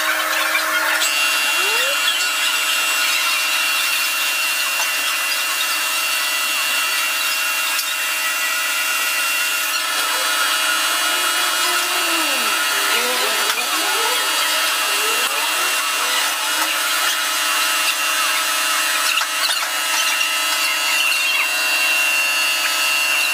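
Laser cutter at work: a steady whir and hiss with several steady whines running through it. Now and then a lower motor whine glides up and down as the head changes speed and direction, most clearly about half-way through.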